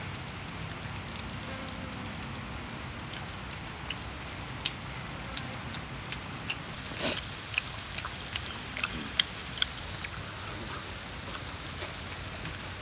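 Wood fire crackling under a flat cooking stone, with the steady sizzle of cow heart and potato slices on the hot rock. Scattered sharp pops, most of them in the second half, and a brief louder hiss about seven seconds in.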